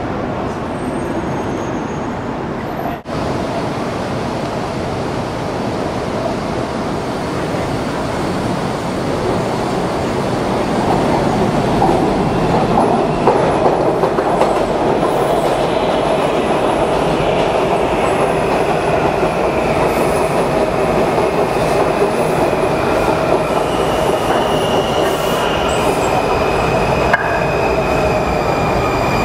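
Washington Metro (WMATA) railcars running on the elevated track. From about halfway, the steel wheels squeal with several high steady tones over the rumble as a train moves along the station platform.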